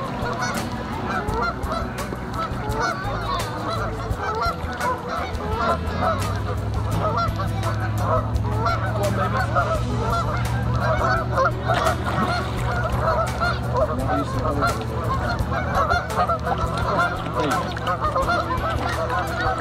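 A flock of waterfowl calling and honking without a break, many short calls overlapping. A steady low hum joins in about six seconds in.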